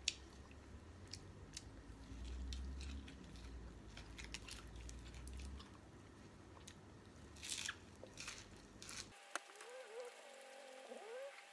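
Close eating sounds: chewing and crunching of steamed fish wrapped in fresh leafy herbs and raw vegetables, with scattered small clicks and crackles. About nine seconds in, the low background cuts off abruptly and faint wavering tones take over.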